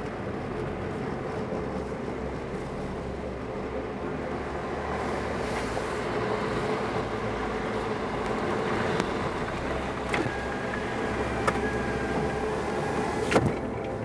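Suzuki Jimny JB64's 660 cc turbocharged three-cylinder engine running steadily at low speed, with tyres rolling over a rough gravel and grass track, heard from inside the cabin. A few light clicks in the second half and a sharp knock near the end.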